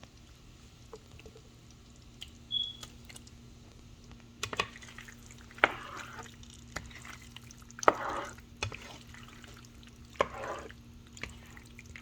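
Cooked penne pasta being drained and moved into a pan of alfredo sauce: intermittent wet sloshing and squelching with sharp clinks of a utensil on the pot, starting about four seconds in.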